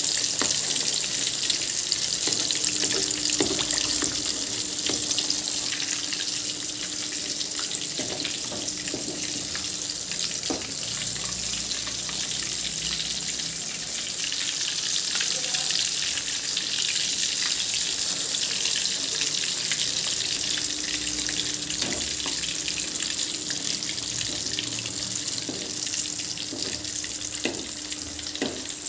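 Hot oil sizzling steadily as prawn-masala-coated egg balls deep-fry in a pan, with a few light clicks as a spoon turns them.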